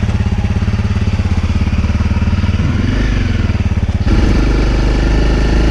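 2017 Honda CRF250L's single-cylinder engine running with an even, rapid pulsing beat. About four seconds in, the sound changes abruptly to a steadier, deeper tone.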